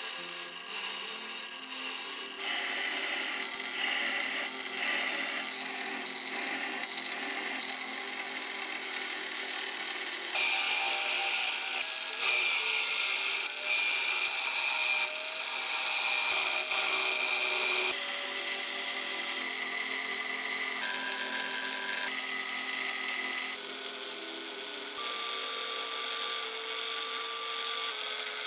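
A run of short edited clips of small power-tool work, each with a steady high whine at its own pitch that jumps abruptly from clip to clip, over rasping and rubbing.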